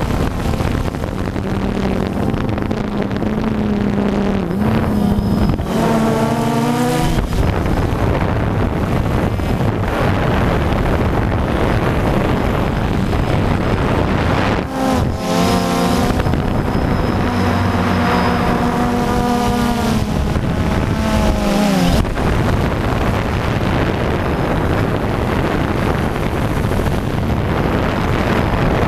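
Camera drone's motors and propellers heard from the onboard camera: a steady buzzing hum with wind rush. The pitch wavers up and down about six seconds in, and again from about fifteen to twenty-two seconds, as the motors change speed.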